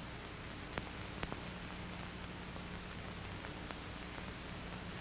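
Steady hiss and low hum of an old 1940s film soundtrack between narration, with two faint clicks about a second in.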